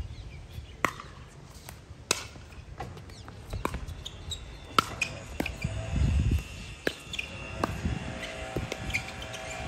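Pickleball paddles hitting the hard plastic ball in a rally: a string of sharp pops roughly a second apart. A short low rumble comes about six seconds in.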